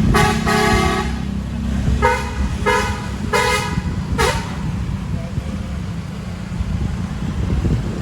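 A bus's telolet basuri musical air horn playing a short tune: one longer held note, then four shorter notes, the last about four seconds in, over a steady low rumble of engines and traffic.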